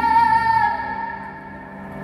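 A female singer's long held note with vibrato, heard live through concert speakers over soft band accompaniment. The note fades away about a second in, leaving only quiet sustained backing.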